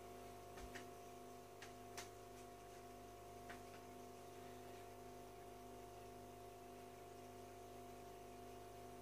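Faint steady hum of an aquarium filter, with a few soft ticks in the first few seconds.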